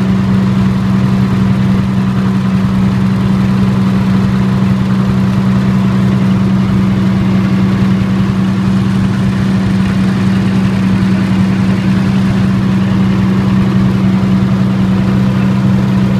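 Military-type diesel generator set, converted for diesel and natural gas dual fuel, running at a steady speed with an even, unchanging engine hum.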